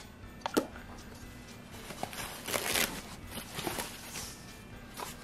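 A light knock as a small wooden toy piece is set down, then rustling and crinkling of packaging as the next piece is unwrapped, with a few small clicks.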